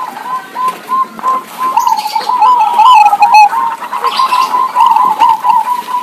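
Zebra doves (local Javanese perkutut) cooing: a quick, continuous run of short coo notes around one pitch, two birds answering each other.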